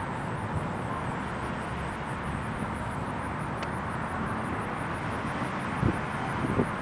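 Steady outdoor background rumble, with a couple of low thumps near the end.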